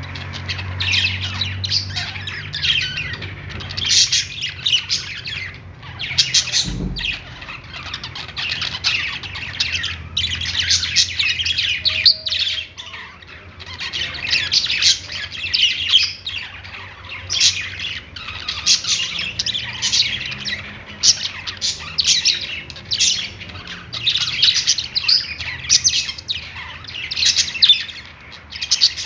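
A group of budgerigars chirping and warbling without pause, a dense stream of quick high chirps and squawks. There is a brief low thump about seven seconds in.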